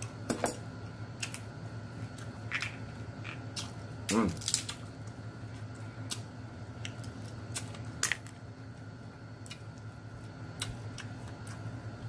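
Snow crab claws being cracked, picked apart by hand and eaten: scattered sharp clicks and snaps of shell and mouth, with a short hummed 'mmm' that falls in pitch about four seconds in. A faint steady hum runs underneath.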